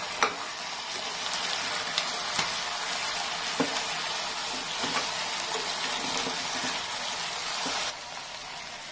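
Mutton pieces sizzling in oil in a metal pan, with a steel spoon clicking against the pan now and then as they are stirred; the meat's own water has cooked off and it is now frying in the released oil. The sizzle drops quieter near the end.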